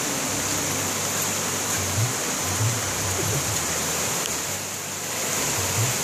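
Heavy monsoon rain falling steadily, an even hiss of water.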